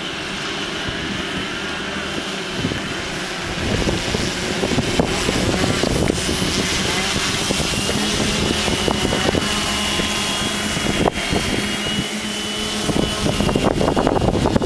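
Small fixed-wing UAV's propeller motor running steadily, with a high whine and a lower hum that grow louder about four seconds in as it flies closer overhead. Wind buffets the microphone near the end.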